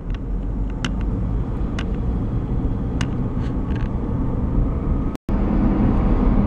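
Steady low road and engine rumble of a moving car heard from inside, with a few faint clicks; the sound drops out for a split second about five seconds in.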